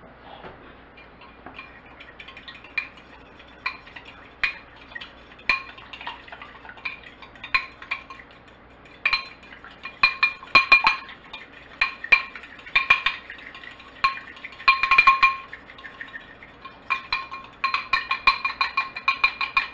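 A fork clinking and scraping against a glass bowl as an egg is beaten with a little water. Each strike rings with a glassy tone, and near the end the strokes become a fast, even whisking rhythm.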